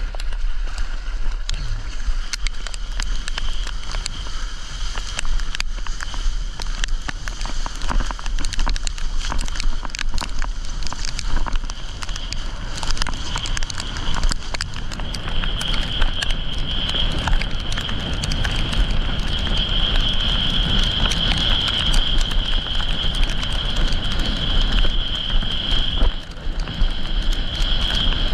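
Wind and water rushing past a windsurfer's board-mounted camera as the board picks up to planing speed in a hail squall, with a dense crackling patter of hail and rain. A steady high whistle comes in about halfway through and holds as the speed rises.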